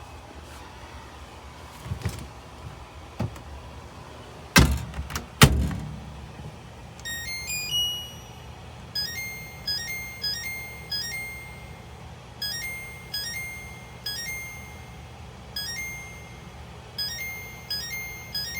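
Compact portable clothes dryer running with a steady low hum, with several heavy thunks in the first six seconds. From about seven seconds a short electronic beeping tune repeats again and again.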